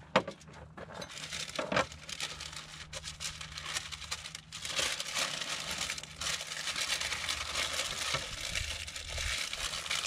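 Baking paper and aluminium foil crinkling as they are folded around a seasoned fish to wrap it for cooking, with a sharp tap just at the start.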